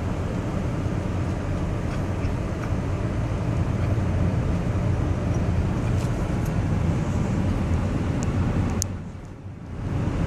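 Steady low rumble of road and engine noise heard from inside a moving car's cabin, with a brief dip in loudness about nine seconds in.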